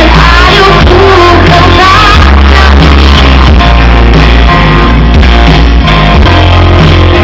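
Live pop-rock band playing loud, with electric and acoustic guitars, bass guitar and drums, a woman singing lead over it; the bass is heavy.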